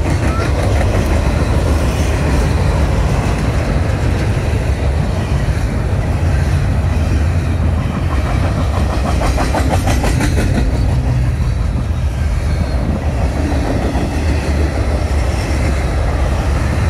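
Freight train cars rolling past, a loud steady rumble of wheels on track. A run of rapid clickety-clack from the wheels comes about halfway through.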